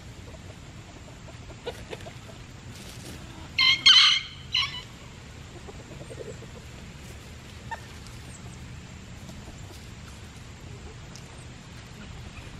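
A chicken gives one loud, shrill call in three quick parts about four seconds in.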